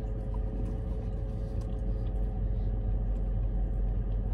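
Steady low rumble and hum of a car idling, heard from inside the cabin.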